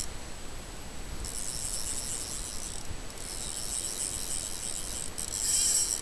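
Fishing reel working while a hooked salmon is played on the line: a high-pitched mechanical whir that is faint for the first second, then steady from about a second in, with a short break near three seconds.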